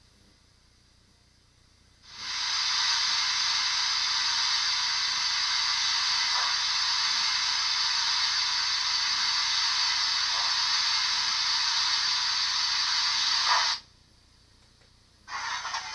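OO-gauge Princess pacific model steam locomotive's DCC sound decoder playing a steady steam hiss through the model's small speaker. It starts about two seconds in and cuts off sharply near the end.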